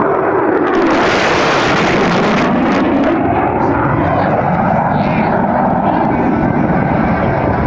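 F-22 Raptor's twin F119 turbofan jet engines in a loud, fast low pass. The noise surges with a burst of hiss about a second in, and its pitch sweeps down as the jet goes by.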